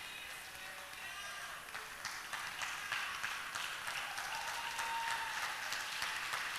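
Congregation applauding, the clapping swelling a little about two seconds in, with a few voices mixed in.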